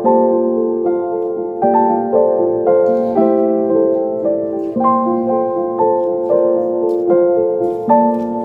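Background piano music: a slow, gentle melody of notes that each ring and fade.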